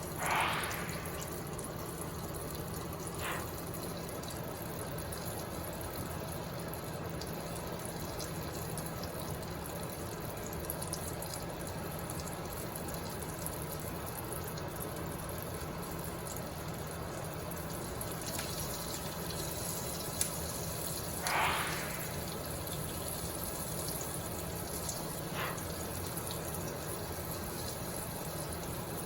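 Breaded green tomato slices frying in hot bacon grease: a steady sizzle, with a few short, louder surges of sizzling.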